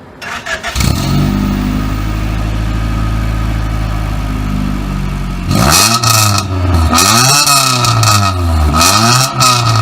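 Honda D16 four-cylinder engine breathing through new 4-2-1 headers, a test pipe in place of the catalytic converter and a full exhaust: it cranks briefly and catches within the first second, then idles steadily. From about five and a half seconds in it is revved several times in quick succession.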